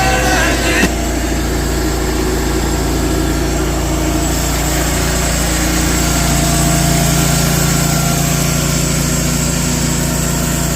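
Background music cuts off about a second in, leaving the engine of a Hud-Son H360 hydraulic portable sawmill running steadily.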